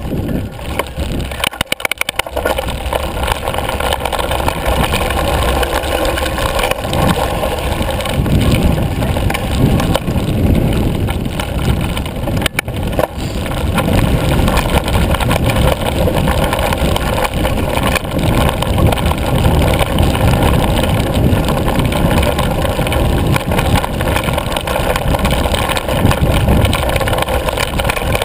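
Yeti ASR5 mountain bike rolling fast down a dry dirt trail, with wind buffeting the handlebar camera's microphone as a steady low rumble and the bike rattling over bumps. A few clicks about two seconds in, and one sharp knock about twelve seconds in.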